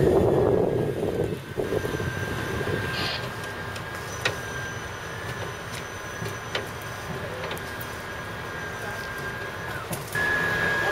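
Heavy machinery running steadily during the tram unloading, with a thin high whine held throughout. It is louder for the first second and a half, and there is a single sharp click about four seconds in.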